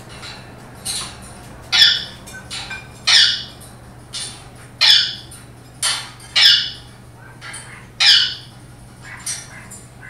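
A parrot squawking over and over: about seven loud, short calls a second or so apart, with softer calls in between.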